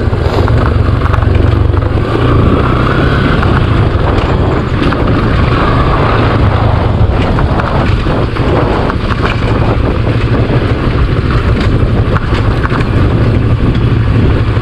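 Motorcycle engine running steadily while being ridden, with wind noise on the microphone.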